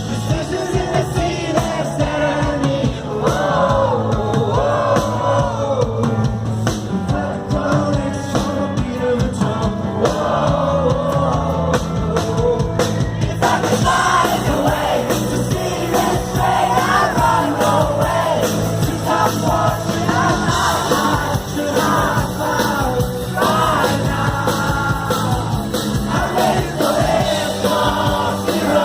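Live rock song: a male singer over a band, heard from among the audience. The band grows fuller about halfway through.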